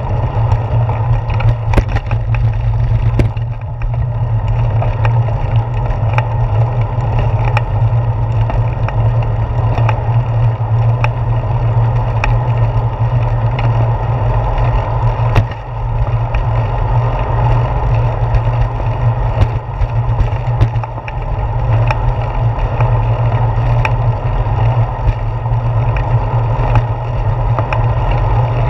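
Steady rumble and rattle of a bicycle rolling along a concrete sidewalk, picked up by a GoPro camera mounted on the handlebars. Scattered sharp knocks mark the tyres crossing the joints in the concrete.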